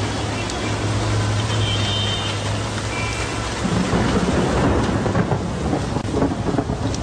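Torrent of muddy floodwater rushing past, a loud, steady rush of water, with a low steady hum under it that stops about halfway through.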